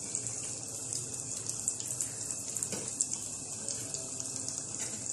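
Breaded cutlets deep-frying in a pan of hot oil at medium-low heat, a steady sizzle. A faint tap of a metal spatula in the pan comes about two and a half seconds in, as the cutlets are turned.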